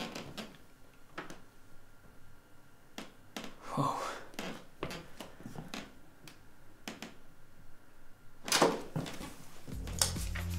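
A lever-handled door opening and someone coming into a small room with a wheeled suitcase: scattered clicks and knocks, with a louder knock near the end. Electronic music comes in just before the end.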